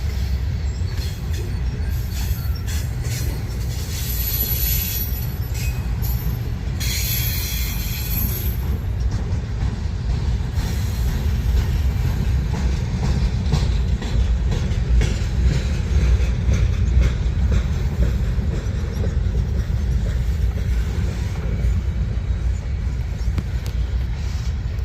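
A train rolling past with a steady low rumble, and brief high wheel squeals about four and seven seconds in.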